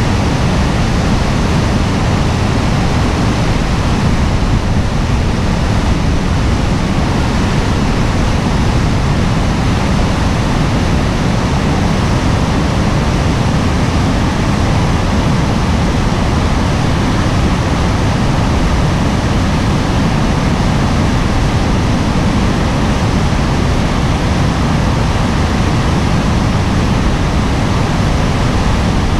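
Class 6 white-water rapids of the Upper Niagara River rushing in a loud, steady wash of water noise, deepest in the low end.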